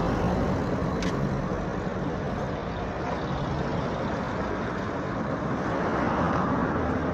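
Road traffic noise: a motor vehicle's engine running along with tyre noise, swelling louder about six seconds in, with a brief click about a second in.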